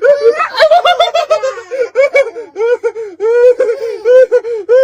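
High-pitched laughter in quick repeated bursts, about three or four a second, with gasping breaths between them.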